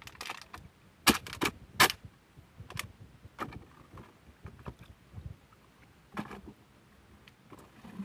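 A long cylindrical fish trap set down in a wooden canoe: three sharp, loud knocks against the hull a little over a second in, then several softer knocks.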